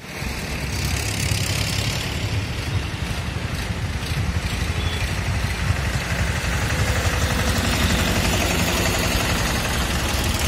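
Several Massey Ferguson tractors' diesel engines running steadily as a line of tractors drives past at low speed.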